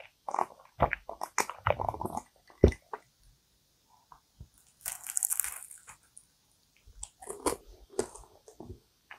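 Close-miked gulps of iced coffee from a glass mug, with a sharp knock about two and a half seconds in, then a crisp crunchy bite into a flaky cream-filled kouign-amann pastry near the middle, followed by chewing.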